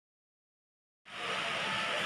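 Silence for about a second, then steady background noise, an even hiss with a faint hum in it, cuts in suddenly and carries on unchanged.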